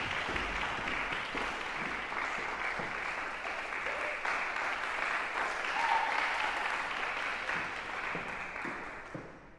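Audience applauding steadily in a concert hall, dying away near the end.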